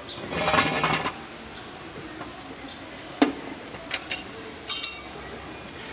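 Metal hand tools clattering and clinking as they are handled: a scraping rattle at the start, a sharp clank about three seconds in, then a couple of clicks and a ringing metallic jingle near the end.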